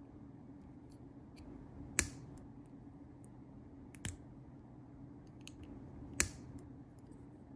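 Small plastic building bricks being handled and pressed together by hand, snapping into place with sharp clicks: one about two seconds in, a quick pair near four seconds and one past six seconds, with faint plastic ticks between.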